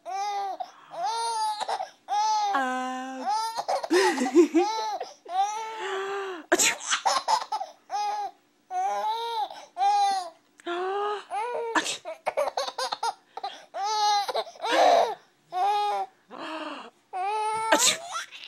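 A six-month-old baby laughing in a long run of short bursts. A few sharp sneezes from an adult set off fresh rounds of the laughter.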